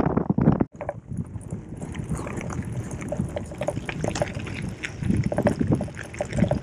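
Gravel bike rolling over a rough dirt and gravel road, tyres crunching and the bike rattling with many small ticks, over wind buffeting the microphone.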